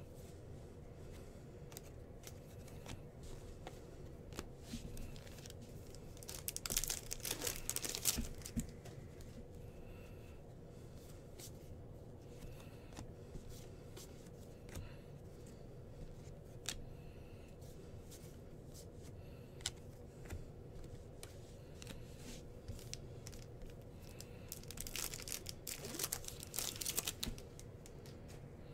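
Bowman baseball card packs being torn open, twice about eighteen seconds apart, with the wrappers crinkling. Soft clicks of cards being handled come between the tears.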